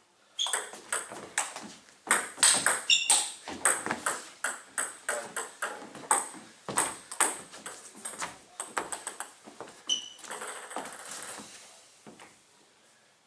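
Celluloid-style table tennis ball being hit back and forth in a long rally: a quick run of sharp clicks of ball on bat and table, which stops near the end. A few short high squeaks of shoes on the wooden floor come in between.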